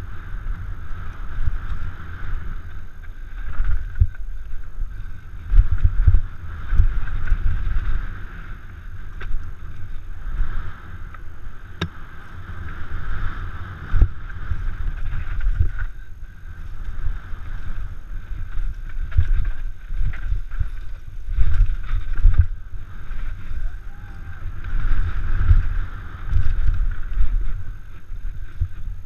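Downhill mountain bike running fast over rough trail: uneven rumbling and thumping from the bike over bumps, with a few sharp knocks, under wind rushing across the helmet-mounted camera's microphone.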